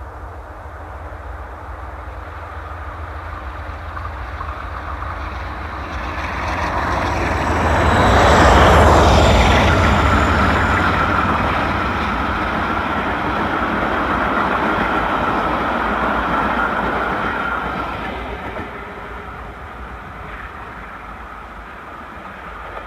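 Class 46 diesel locomotive 46 055, with its Sulzer twelve-cylinder engine under load, hauls a parcels train up a steep 1-in-42 gradient. It grows louder and is loudest about eight or nine seconds in. A steady high whine holds until the sound drops away about eighteen seconds in.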